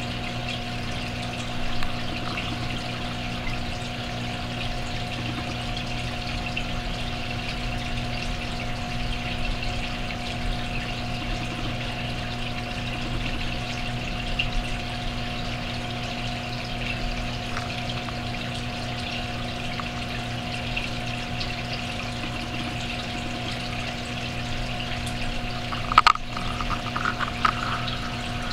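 Aquarium pump running with a steady hum and water trickling. A sharp click comes near the end, followed by a few brief louder sounds.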